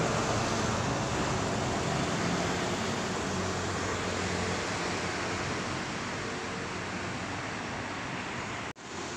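Steady outdoor street ambience with traffic noise: a continuous even hiss over a low hum. It cuts out abruptly near the end.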